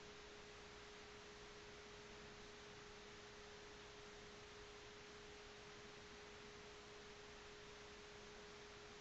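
Near silence: a faint steady hiss with a thin, steady tone held at one pitch.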